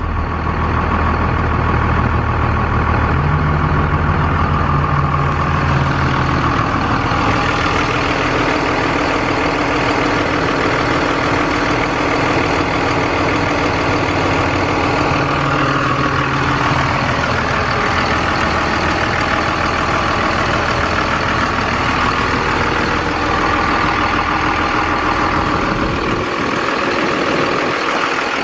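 Cummins ISB 5.9-litre inline-six diesel engine of a 2003 Freightliner MT55 delivery truck running steadily. Its note shifts a few seconds in and again around the middle.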